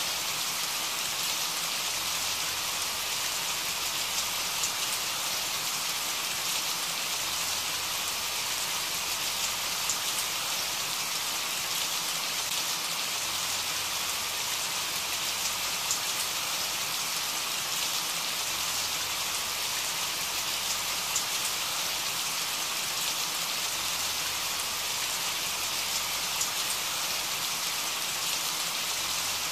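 Steady rain: an even hiss with scattered small drop ticks.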